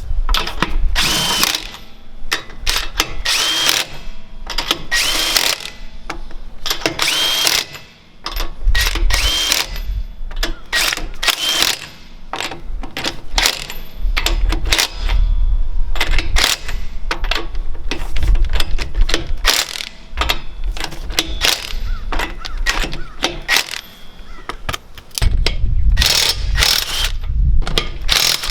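Earthquake XT 20V 1/2-inch cordless impact wrench hammering in repeated bursts of about a second each, with short gaps between, as it works lug nuts.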